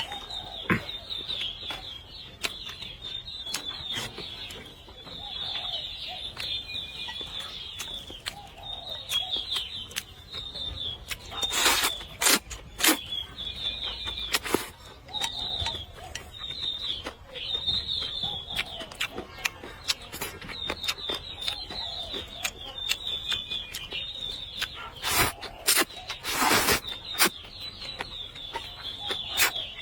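A person eating a meal of noodles: chewing, small clicks of chopsticks, and a few loud slurps, two about twelve seconds in and two near the end. Small birds chirp over and over in the background.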